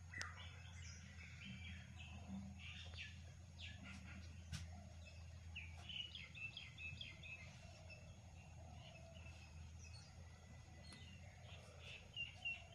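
Birds chirping faintly, many short calls throughout, over a low steady hum.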